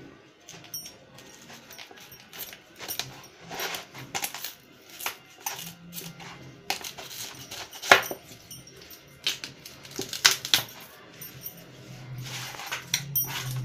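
Knife cutting and snapping the leaves and stalk off a fresh cauliflower on a plastic chopping board: a string of irregular crisp cracks and crunches, the loudest about eight seconds in.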